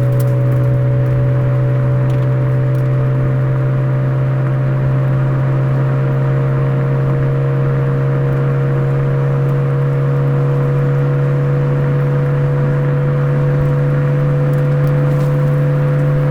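Exhaust note of a Suzuki Swift Sport ZC33S's 1.4-litre turbocharged four-cylinder through a Fujitsubo aftermarket muffler: a steady, even drone at a nearly constant engine speed, its pitch creeping up slightly.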